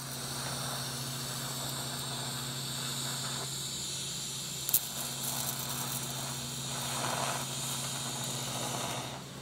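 TIG welding torch arcing on steel while filler rod is fed in: a steady hiss over a low hum. A single sharp click comes about halfway through.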